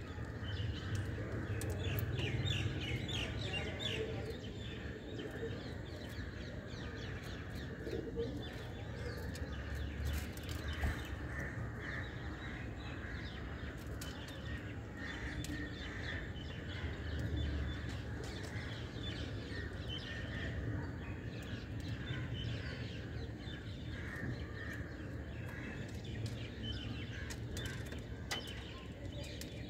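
House sparrows chirping in quick, busy calls, with scattered sharp taps as a sparrow pecks seeds off a hard ledge, over a steady low background hum.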